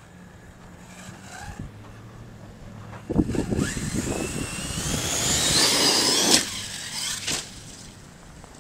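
Arrma Kraton 6S RC monster truck accelerating under throttle. From about three seconds in, its brushless motor whines higher and higher over a rush of noise, cuts off suddenly, and a short second burst of throttle follows about a second later.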